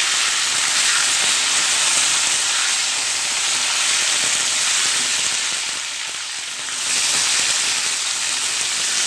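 Potato and yam chunks sizzling as they fry in hot oil in an aluminium kadai, stirred with a metal spatula. The sizzle is steady, easing briefly a little past halfway.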